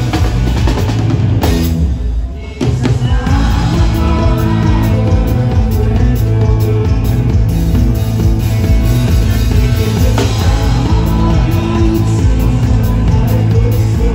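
Live rock band playing loud on a festival stage: drum kit and electric guitars, with a short break about two seconds in before the full band comes crashing back in.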